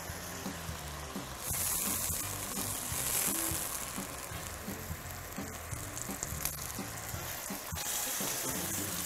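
A cheese-topped tortilla sizzling in hot oil in a frying pan. The sizzle grows louder for a couple of seconds starting about a second and a half in, and again near the end, as the beef filling is laid on. A few light clicks of the tongs can be heard.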